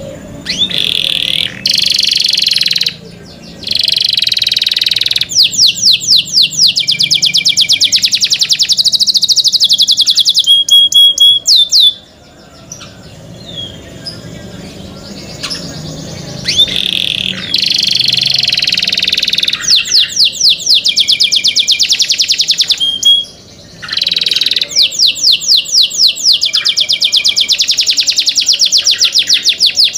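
Canary singing: long, loud, high-pitched rolls of rapidly repeated notes, broken by short pauses, with a softer, quieter passage about halfway through.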